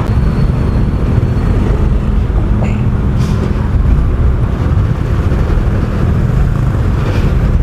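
Steady, loud low rumble of wind buffeting the microphone while riding a motor scooter, with the scooter's engine and road noise underneath.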